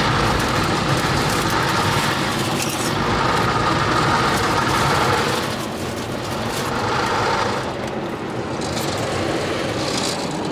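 Automatic car wash running, heard from inside the car's cabin: a steady rushing noise, louder for the first five seconds or so, then dipping and swelling again.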